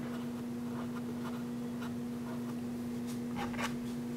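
Palette knife dabbing and scraping thick acrylic paint onto a small wooden panel: a string of short scratchy strokes, the loudest pair about three and a half seconds in, over a steady low hum.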